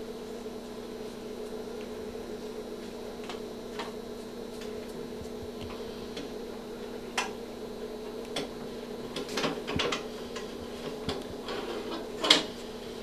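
Steady electrical hum from room equipment, with scattered light clicks and handling knocks, a cluster of them about nine to ten seconds in and the sharpest knock near the end.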